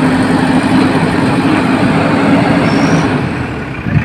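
JCB backhoe loader's diesel engine running steadily and loudly, easing off slightly near the end.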